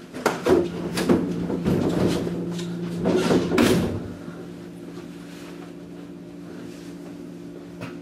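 Steady electrical hum from a stopped 115 series electric train's onboard equipment. For the first four seconds, a loud run of knocks, clatter and rustling sounds inside the carriage; one more short knock comes near the end.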